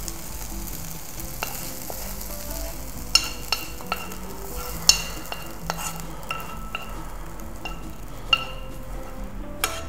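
Metal spoon scraping and clinking against a hot sauté pan as caramelized onion and bacon are scooped out into a bowl: a dozen or so ringing metallic clinks at irregular intervals, over a faint sizzle from the pan.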